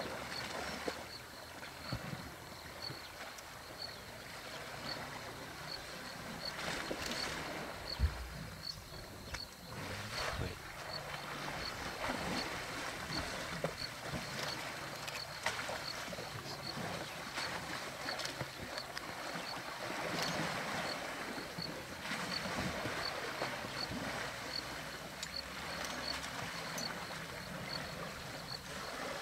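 Water splashing and sloshing as African elephant bulls wade and play in a waterhole, swelling and easing, with one low thump about eight seconds in. A faint high chirp repeats evenly about twice a second throughout.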